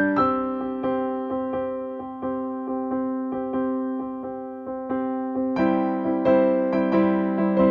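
Background piano music: evenly paced struck notes over a held chord, growing fuller and brighter about five and a half seconds in.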